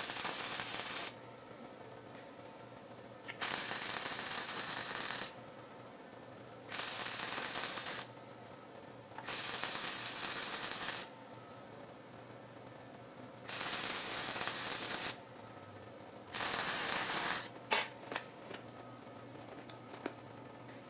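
MIG welder arc running in six short bursts of one to two seconds each. These are test beads laid on a rusty old muffler while the wire speed and heat settings are dialed in.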